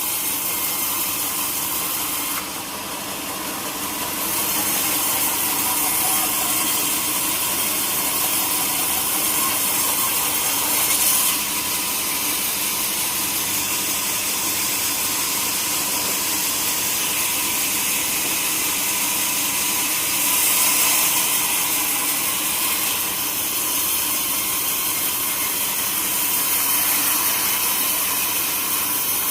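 Sawmill saw running and cutting through a log, a continuous mechanical whine and hiss, briefly quieter a couple of seconds in.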